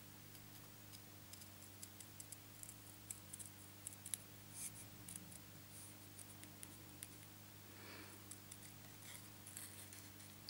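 Small paper-snip scissors cutting out a stamped paper image: a run of faint, quick snipping clicks.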